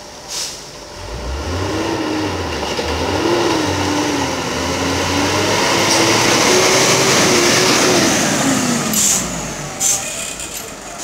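Concrete mixer truck's diesel engine revving hard and labouring, rising about a second in, holding a wavering pitch, then dropping away near the end, with a couple of short sharp clicks.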